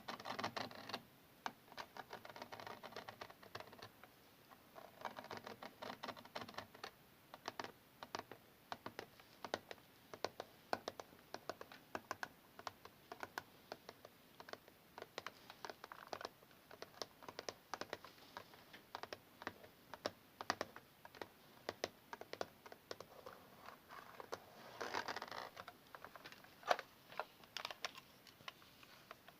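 Tapping and scratching on an old camera: a dense, irregular run of quick clicks with several stretches of scratching, and one sharper click near the end.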